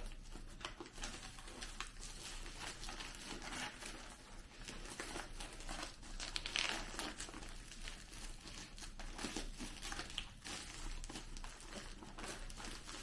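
Plastic mailer bag and the paper wrapping inside crinkling and rustling as a parcel is unwrapped by hand, in irregular crackles, busiest about halfway through.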